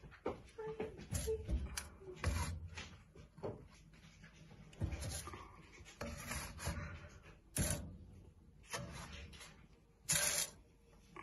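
Irregular rubbing and scraping strokes, about one a second, against the metal inside of a small countertop oven and its baking tray.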